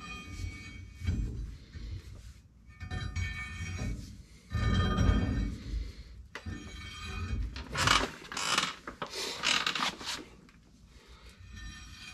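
Steel rear axle shaft being slid into the axle housing of a 1986 GMC Sierra 3500 dually, giving irregular clunks and metal scraping as it is worked in toward the carrier. The loudest scrapes and knocks come about halfway through and again two-thirds of the way in, and it goes quieter near the end.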